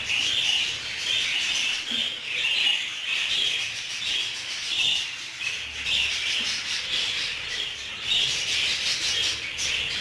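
A flock of budgerigars chattering together: a continuous, dense, scratchy twittering.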